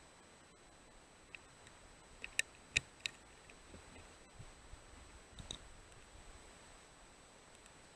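A few faint, sharp clicks, three close together between two and three seconds in and a couple more later, over a low hiss and a thin steady high-pitched electronic whine.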